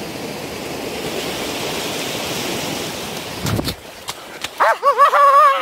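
Steady rushing of ocean surf washing up the beach, cut off about three and a half seconds in with a low thump. Near the end a high, wavering voice squeals.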